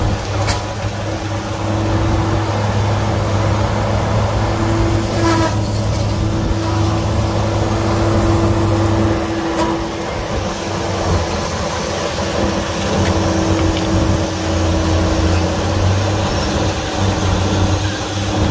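Heavy equipment's engine running steadily with a constant low hum, dipping briefly about halfway through, with a couple of sharp knocks.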